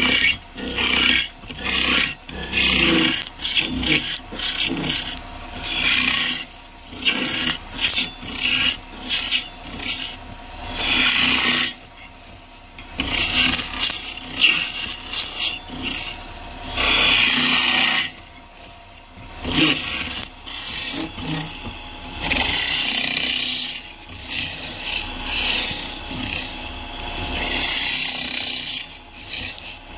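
Turning tool scraping and cutting spinning wood on a lathe in repeated passes. In the first half these are short strokes, roughly one or two a second. In the second half they become longer strokes lasting a second or two each.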